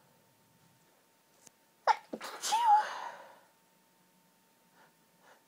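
A single high-pitched, girly sneeze about two seconds in, one of a run of hay fever sneezes.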